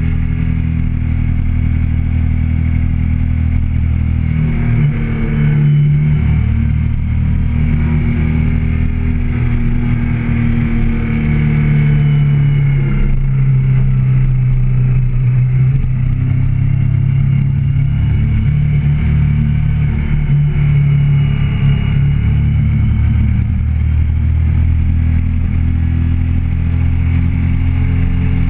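Motorcycle engine running steadily under way, its note shifting about five seconds in and climbing again around twelve seconds as the rider works the throttle.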